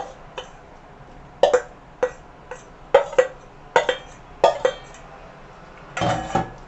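Short knocks and clinks on a plate as marinated chicken pieces are laid out flat on it, about nine in a row, then a longer, louder clatter near the end.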